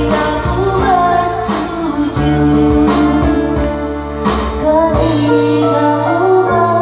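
Karaoke: a woman singing a pop ballad into a microphone over the song's backing track, with guitar in the accompaniment.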